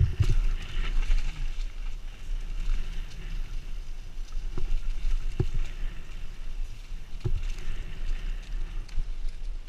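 Mountain bike descending a dirt forest trail, heard from a helmet camera: steady wind rumble on the microphone and tyre noise on the dirt, with sharp knocks from the bike over bumps, a cluster right at the start and a few single ones later.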